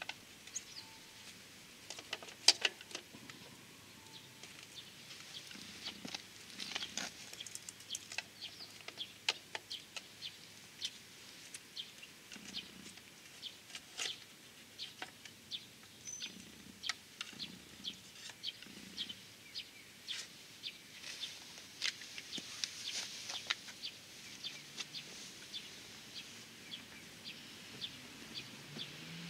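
Scattered light clicks and ticks of a screwdriver and plastic and metal parts as the headlight unit of a Honda Super Cub 110 Pro is unscrewed and worked free of its housing, with a sharper knock about two and a half seconds in. Small birds chirp in the background.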